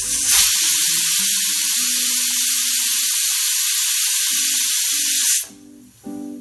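Pressure cooker's weighted whistle valve venting steam: a loud steady hiss that starts suddenly and cuts off about five seconds in, the sign that the cooker has come up to pressure.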